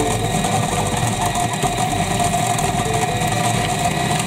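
Electric food processor running at speed, its motor whining steadily and very loud as the blade chops tomato, chili, onion and garlic into a spice paste.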